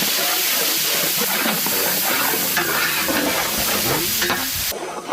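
Crushed shallots frying in hot sesame oil in a large pot: a loud, steady sizzle that stops suddenly near the end.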